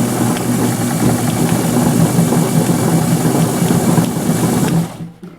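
Brother-built American Home Deluxe straight-stitch sewing machine running steadily, stitching in reverse through six layers of 12-ounce denim. It stops about five seconds in.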